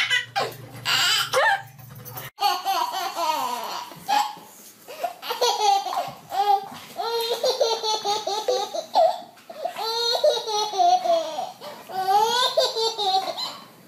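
A baby laughing hard in a string of laughs, with short breaks between them.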